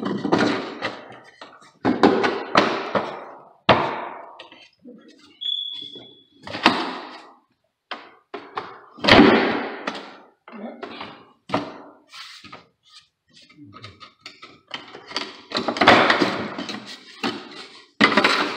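A wooden stair riser board being handled and knocked against the stairs as it is test-fitted: a series of irregular thuds and knocks, with a brief high squeak about five and a half seconds in.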